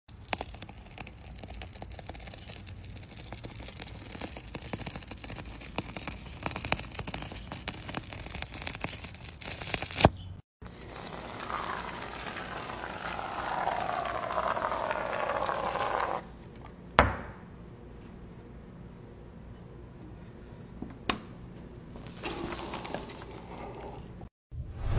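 A hooked blade slicing through a thick pink rubbery sheet, with dense fine crackling and scraping. After a short break about ten seconds in, soft material is squished through a metal perforated press, with a few sharp clicks later on.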